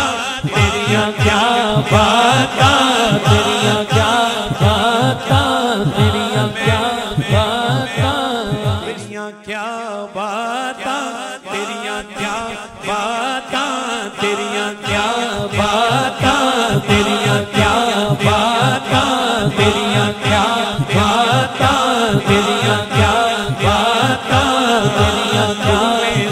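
A man singing a naat into a microphone through a sound system, over a steady beat and a held low drone. The beat drops out about nine seconds in and comes back some six seconds later.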